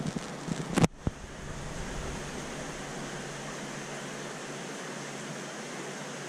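Steady rushing hiss of aquarium water flow and filtration with a faint low hum, broken under a second in by a sharp knock and a smaller one just after.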